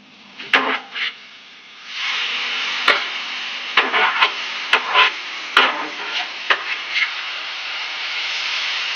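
Stir-fry sizzling in a hot pan, with a utensil scraping and clicking against the pan as it is stirred. The sizzle starts up about two seconds in and holds steady.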